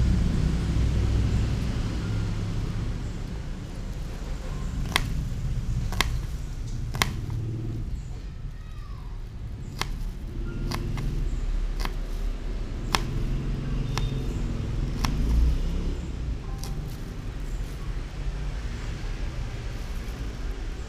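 Kitchen knife tapping against a plastic cutting board while small onions are chopped: a series of short, sharp taps, roughly one a second, through the middle stretch. Under it runs a steady low rumble like distant traffic.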